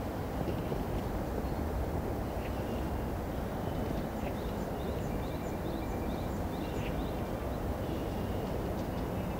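Steady low outdoor rumble, like wind on the microphone, with faint bird chirps in quick runs of short calls, most of them over the middle few seconds.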